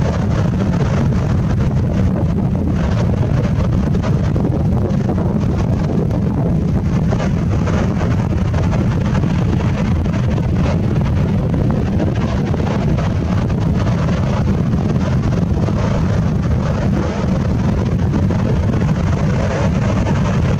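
Wind buffeting the microphone: a loud, steady low rumble with a hiss above it that never lets up.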